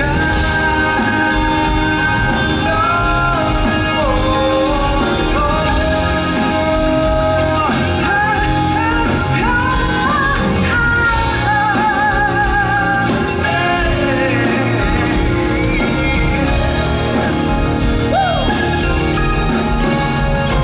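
A male pop singer singing live into a microphone, backed by a small band of guitars, with held notes that waver in vibrato.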